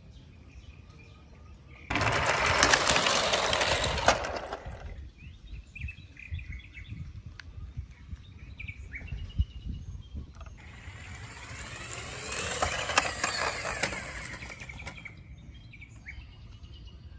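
Birds chirping, broken by two louder bursts of rushing noise: one about two seconds in lasting nearly three seconds, and a longer one near the end with a sweeping pitch.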